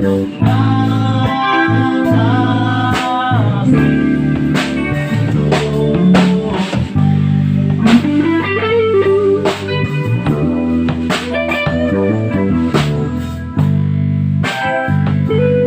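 Live band playing an instrumental passage: guitar lines over bass, keyboard and a drum kit keeping a steady beat.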